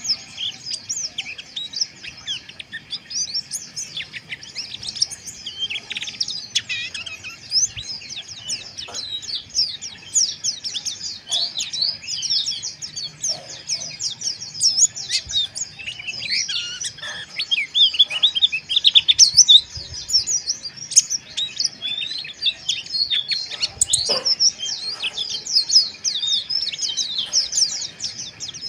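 White-eyes (pleci) twittering together in a dense, fast, rough chatter of short high chirps that overlap without a break (ngeriwik kasar).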